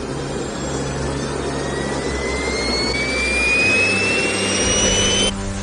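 Gravity jet suit's small gas-turbine engines running, a roar with a whine that climbs steadily in pitch as the turbines spool up. The sound cuts off suddenly near the end.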